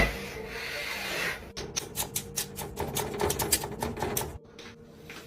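A quick, uneven run of sharp clicks or taps, about seven a second, starting about a second and a half in and stopping shortly before the end, over a faint steady hum.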